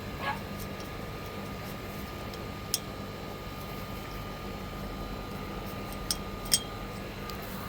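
A few sharp metal clicks of gazebo canopy hooks being unclipped, the loudest a pair just after six seconds in, over a steady background hum.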